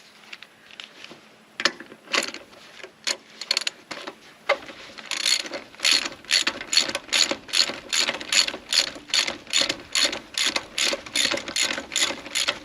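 Hand ratchet clicking as it turns a 13/16-inch square socket to back off the inner lug nut on a truck's rear dual wheel. A few scattered clicks come first, then steady ratcheting at about three clicks a second from about five seconds in.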